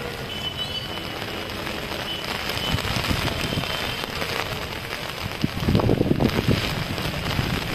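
Heavy rain falling, a steady hiss of drops striking an umbrella held close to the microphone and the flooded ground. It grows louder and heavier in the low end about two-thirds of the way through.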